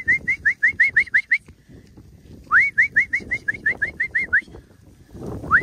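A shepherd's mouth whistle to a working kelpie: quick runs of short, rising whistled notes, about seven a second, given three times. Low scuffling noise runs underneath.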